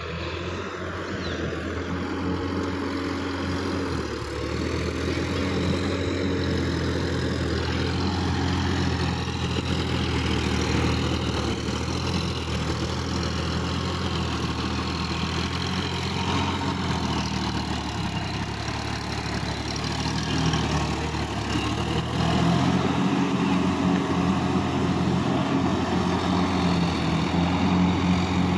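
Sonalika DI-50 RX tractor's diesel engine running steadily as the tractor works in deep mud. It gets louder about three-quarters of the way through.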